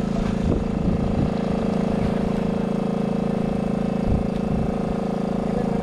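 Water pump's engine running steadily, draining a stream, with a few brief thumps over it.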